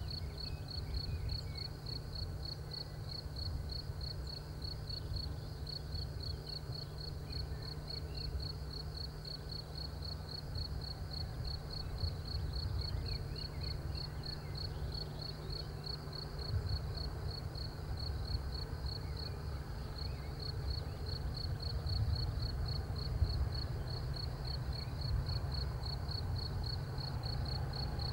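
Crickets chirping in a steady, rapid, even pulse, over a faint low rumble from a distant Class 37 diesel locomotive's English Electric V12 engine working a loaded ballast train.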